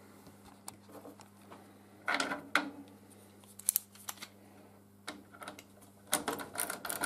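Tools and small bolts being handled on a workbench, with scattered clicks and knocks. About six seconds in comes a quick run of clicks from a ratchet screwdriver starting to drive an M6 Allen bolt into the conversion-kit bracket.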